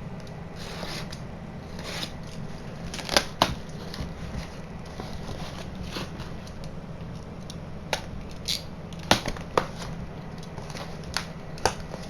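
Packaging being pulled apart by hand: scattered rustling and tearing of wrapping and cardboard, with a handful of sharp snaps and taps, over a low steady hum.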